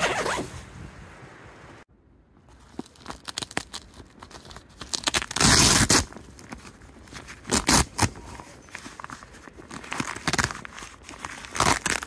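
Tent being pitched in snow: irregular bursts of rustling, scraping and crunching as the gear is handled, the loudest about five to six seconds in.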